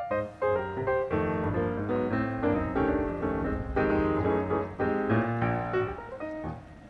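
Background music: a piano playing a quick melody with chords.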